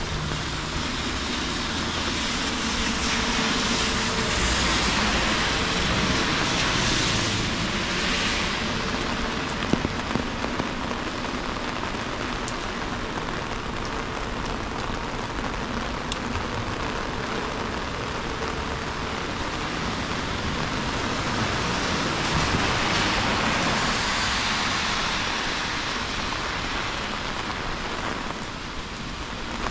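Heavy rain pouring down, a steady hiss that swells louder twice, with a couple of sharp ticks about ten seconds in.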